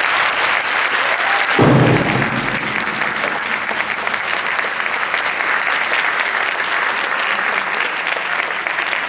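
Hall audience applauding steadily, with a single low thud about two seconds in.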